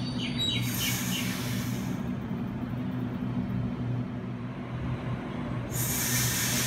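Sydney Trains double-deck electric train running at the platform, with a steady low electric hum throughout. A hiss comes in briefly about half a second in and again near the end.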